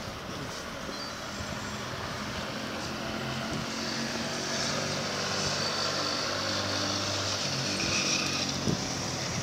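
A motor engine's steady hum that slowly grows louder.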